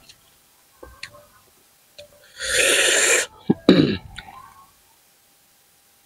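A person eating: a few small mouth clicks, then a loud breathy hiss lasting about a second, followed by a sharp click and a short breathy vocal sound that falls in pitch.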